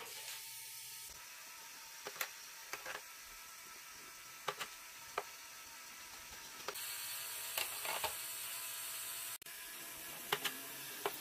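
LEGO Spike Prime medium motor driving a plastic ball-lift mechanism: a faint steady whir with about ten scattered light clicks as plastic balls and parts knock along the track.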